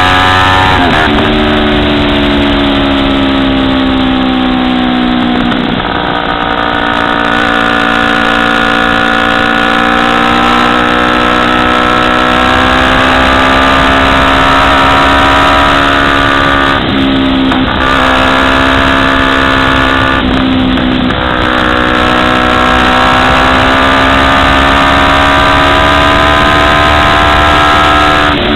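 Kawasaki Ninja 250R's parallel-twin engine running hard under way, its note rising and falling and dipping briefly several times, over steady wind rush.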